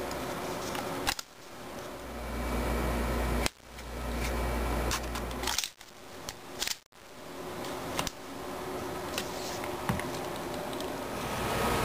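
Scattered light clicks and knocks of a rifle and its rail-mounted plastic bipod being handled, over a steady hiss. A low rumble runs from about two seconds in to nearly six, and the sound cuts out abruptly several times.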